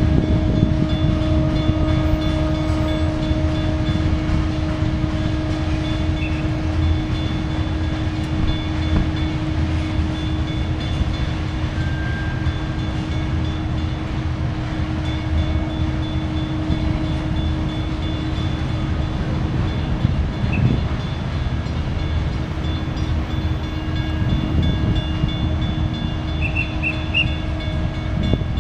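Coal hopper cars of a BNSF freight train rolling past, a continuous rumble of steel wheels on rail. A steady low tone sits under the rumble for the first half and then fades.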